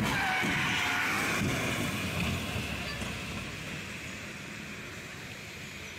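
Wind buffeting the microphone over traffic noise on a waterlogged road, with a raised voice in the first second or so. The noise eases off after about two seconds.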